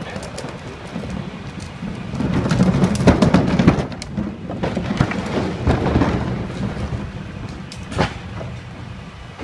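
Diesel engine of a 1980s Peterbilt 310 garbage truck with a Heil rear loader idling steadily, while plastic wheeled recycling carts rattle and clatter as they are rolled over the pavement, loudest in the middle. A single sharp knock comes near the end.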